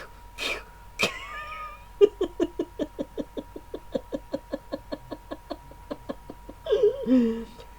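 A man's voice acting out a fake sneezing fit: a rapid run of short staccato vocal bursts, about eight a second for some four seconds, with a drawn-out wavering vocal sound shortly before and another near the end.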